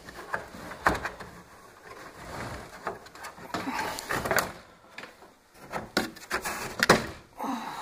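Plastic back cover of a flat-screen TV being pried up and lifted off by hand: scattered plastic clicks and knocks with scraping and rubbing between them, the sharpest clicks about a second in and near the end.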